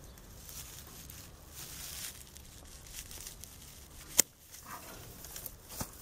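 Hand secateurs snipping through a thin mulberry shoot: one sharp snap about four seconds in and a fainter click near the end, over light rustling of dry grass and twigs being handled.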